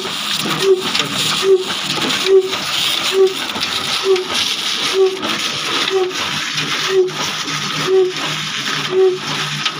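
Old Ruston Hornsby diesel engine running, turning belt-driven pulleys and a line shaft: a steady whooshing hiss of belts and machinery with a regular beat a little under once a second, slowing slightly near the end.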